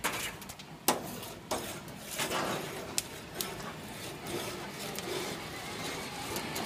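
Scattered knocks and clatters from someone handling a barbecue grill, over a steady hiss.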